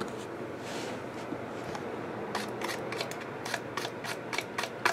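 A plastic wrapper being cut open with a pocketknife and handled: a soft rustle, then from about halfway on a quick run of short, light crinkles and clicks.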